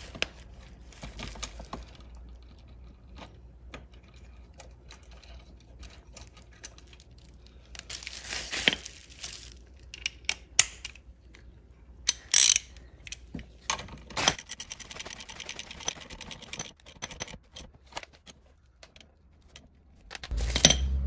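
Ratchet wrench clicking as a seatbelt anchor bolt is run in and tightened, with scattered sharp clanks of tools and hardware and a fast run of clicks in the second half. A low steady hum comes in just before the end.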